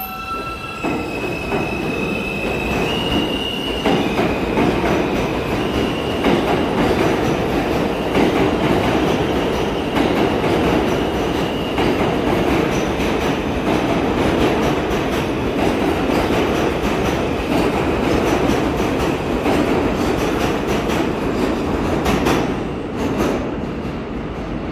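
R160 subway train pulling out of the station: its traction motors give high tones that step up in pitch over the first few seconds, then a loud steady rumble of wheels on rail with some squeal, easing off near the end as the train leaves.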